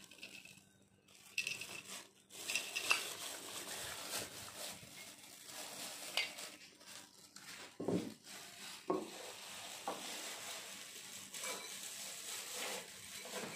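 Light clinks, taps and rubbing of a glass whisky bottle and a small shot glass being handled, in scattered short knocks rather than a steady sound.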